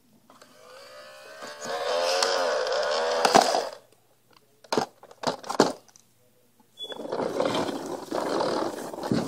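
A child growling a wavering engine noise with his voice while playing with a toy garbage truck, then several sharp plastic clacks as items in the truck's bin are handled, and a rough clattering, rustling stretch near the end.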